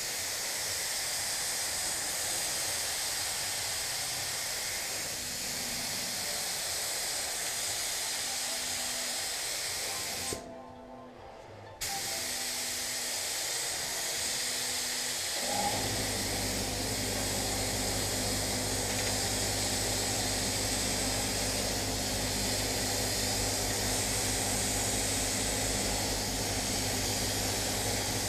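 Gravity-feed spray gun spraying a car door: a steady air hiss that breaks off for about a second and a half near the middle, then resumes. A little after halfway a steady low machine hum starts and runs on under the hiss.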